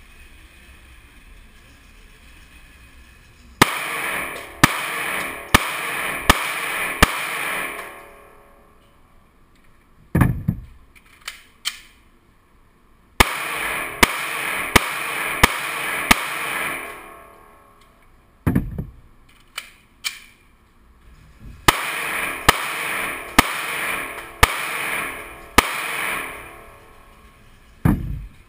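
Pistol shots in an indoor shooting range: three strings of about five shots each, every shot a sharp crack followed by echo ringing off the range walls. A few duller thumps fall in the pauses between strings.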